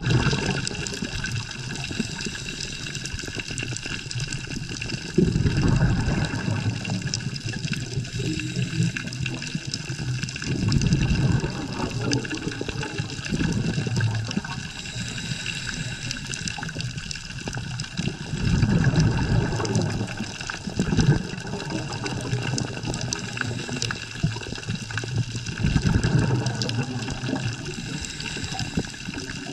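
Underwater sound: a steady hiss, with a low gurgling rumble of exhaled scuba bubbles rising past the camera every few seconds.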